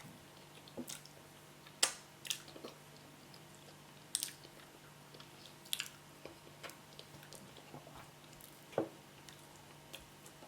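A person chewing and eating yam with spinach: irregular sharp clicks and mouth smacks, a dozen or so spread unevenly, the loudest about two, four, six and nine seconds in.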